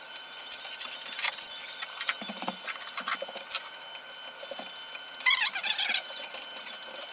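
Squeaking and rubbing of projector screen material being pulled and stretched over its frame, with a dense burst of high squeaks about five seconds in.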